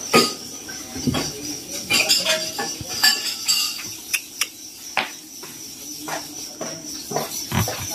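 Eating at a table: cutlery clinking against a plate and bowl in a string of separate sharp clicks, with mouth sounds of someone sucking meat off a goat bone.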